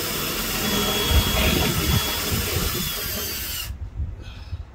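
Power drill with a long bit running, boring up from underneath through a sapele bed board, with a thin steady whine over the cutting noise; it stops suddenly near the end.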